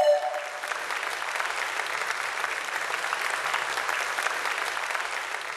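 Audience applauding. The last sung chord cuts off in the first moment, then the clapping holds dense and even before slowly fading.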